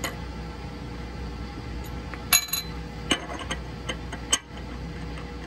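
Small steel parts clinking as they are handled: one sharp, ringing clink a little over two seconds in, then a few lighter knocks, over a steady low hum.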